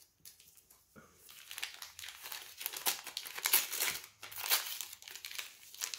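Wrapping paper crinkling and rustling as a small wrapped gift is unwrapped by hand, a dense, irregular crackle that starts about a second in.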